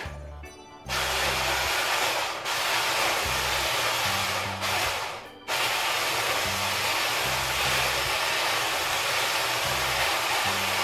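Electric hand blender (immersion stick blender) running in a pot of liquid, starting about a second in. It cuts out briefly about five seconds in, then runs steadily again.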